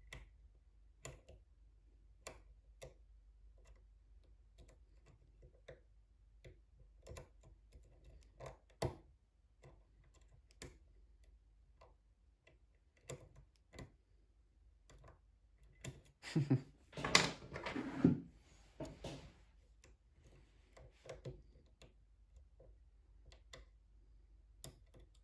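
Lock pick and tension wrench working the pins of a brass pin-tumbler lock: scattered light metallic clicks, with a louder stretch of clicking and scraping about two-thirds of the way through.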